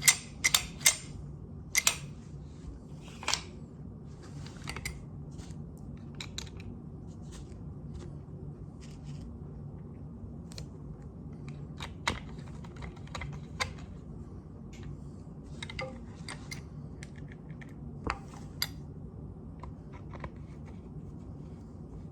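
Metal parts of a Remington Model 12A .22 pump-action rifle clicking and clinking as it is handled and put back together, with scattered light clicks and a few sharper ones, over a low steady hum.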